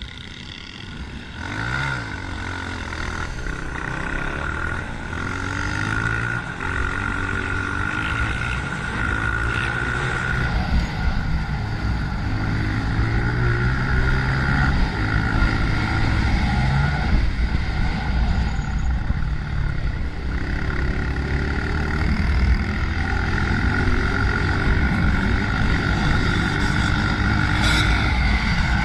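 Honda CRF125F dirt bike's single-cylinder four-stroke engine being ridden hard, its pitch repeatedly climbing and then dropping as the rider works the throttle and shifts gears.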